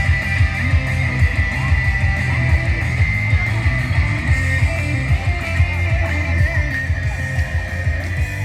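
Rock music with guitar playing, loud and continuous.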